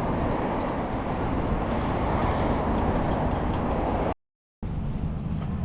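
Steady rushing outdoor noise that swells and eases, broken about four seconds in by a half-second silent gap where the audio cuts out, with a low steady hum after it.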